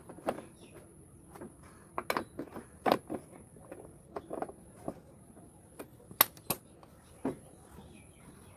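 Scattered light metallic clicks and knocks at irregular intervals: hand tools and parts being handled while working on a scooter's front wheel, with the loudest knocks about three and six seconds in.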